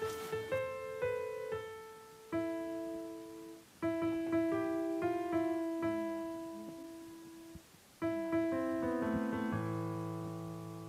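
Background piano music: a slow melody of struck notes, each fading away, in short phrases, with low bass notes coming in near the end.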